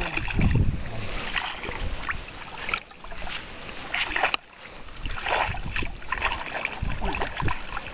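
Water sloshing and splashing as a person wades knee-deep through a shallow lake, in uneven bursts with each stride.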